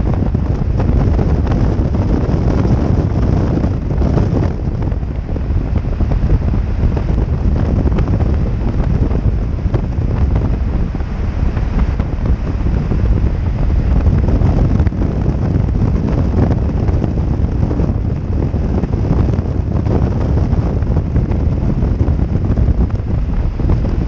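Steady, loud wind rushing over a helmet-mounted camera microphone on a BMW R1200GS Adventure motorcycle cruising at highway speed, with the bike's running and road noise low underneath.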